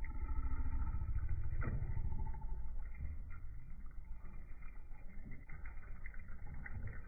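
A deep, warbling rumble with slow sliding low tones: the room and aquarium sound of slow-motion footage, stretched out and lowered in pitch, as an oscar fish strikes at mealworms on the water surface.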